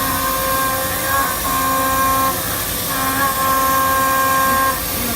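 Large CNC gantry machining center milling aluminium with its 7.5 kW BT40 spindle: a steady whine from the cutting that drops out briefly and comes back several times, over a constant hiss.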